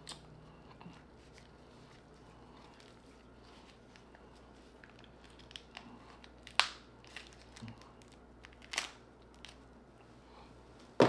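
Cooked lobster tail shell being cracked and pulled apart by gloved hands: quiet crackling and rustling of the shell with a few sharp, loud cracks in the second half and another at the very end.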